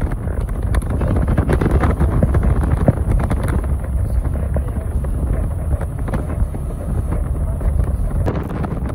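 Wind buffeting the microphone over the steady rumble of a car driving at speed, heard from inside the car.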